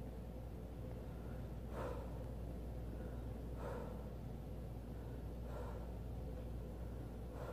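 A man breathing hard during push-ups, one sharp breath with each repetition, about every two seconds, over a steady low hum.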